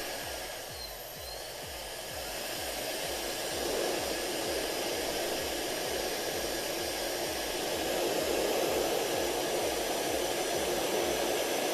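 ESYEST ionic hair dryer with a brushless motor, running with a steady rush of air that grows louder over the first few seconds; it is a little bit loud this close to the microphone.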